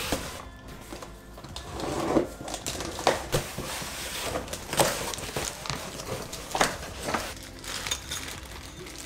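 Exhaust parts and packaging being handled: a series of sharp knocks and clinks, about half a dozen spread out, with rustling between them.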